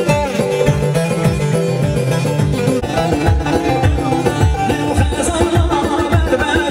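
Kurdish folk music: a plucked string melody over a steady drum beat, with no clear singing.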